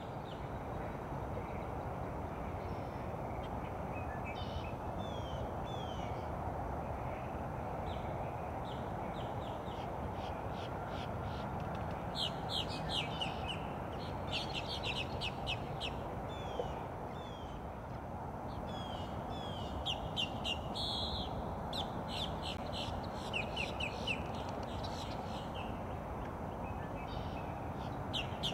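Birds chirping and calling in quick runs of short, high notes, some sliding downward. They are busiest in the middle and later part, over a steady low background noise.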